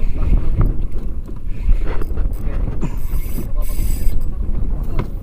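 Wind buffeting the microphone over choppy sea on a small boat, a rough low rumble with scattered knocks and a brief hiss about three seconds in.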